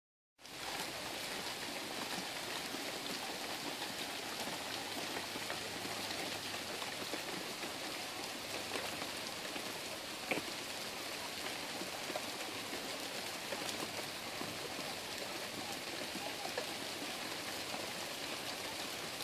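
Steady rain falling on leaves and surfaces, with scattered drips and one sharper tap about halfway through.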